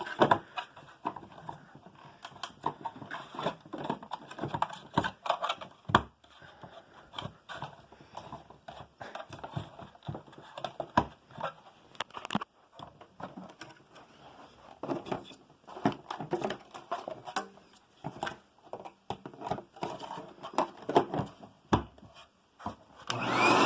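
Irregular clicks, knocks and scrapes of the plastic parts of a Hoover WidePath Tempo upright vacuum being handled and put back together. Near the end the vacuum is switched on and its motor starts, its whine rising as it spins up.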